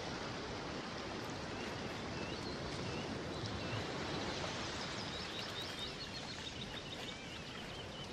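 Steady rush of running water, like a stream, with small birds chirping over it. A quick run of chirps comes in the middle and lasts to near the end.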